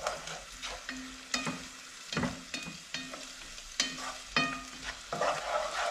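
A utensil stirring and scraping through onion, garlic and brown sugar caramelizing in a nonstick pan, with irregular knocks against the pan, some ringing briefly, over a steady sizzle.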